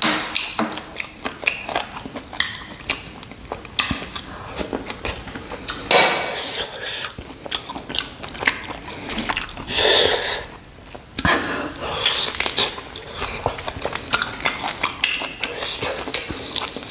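Close-up wet chewing, lip smacks and slurping while eating mutton nalli, with many short sharp mouth clicks. Near the end, a shank bone held at the mouth for biting and sucking.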